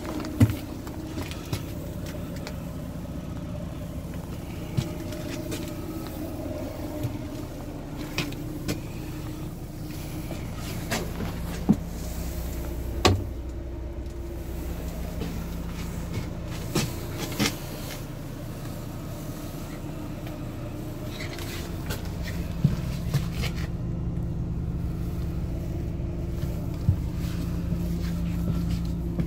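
Scania K400EB coach's six-cylinder diesel idling steadily at about 500 rpm, heard from inside the cabin, with scattered knocks and footsteps over it.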